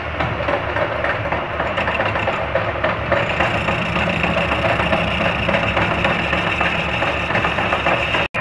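A metal lathe running while a boring tool cuts inside a motorcycle wheel hub, opening out its bearing seat. There is a steady machine hum under a dense, even cutting noise, with a brief break near the end.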